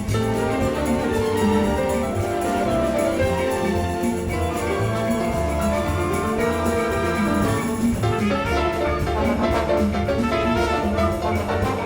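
Piano and symphony orchestra playing a samba, with brass and percussion. Percussion strokes stand out more clearly in the last few seconds.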